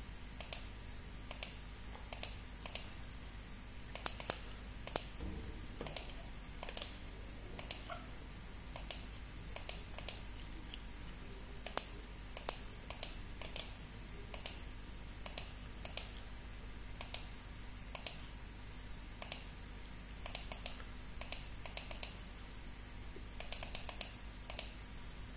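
Computer mouse and keyboard clicking: sharp single clicks and quick pairs at an irregular pace, about one or two a second, with a quick run of clicks near the end.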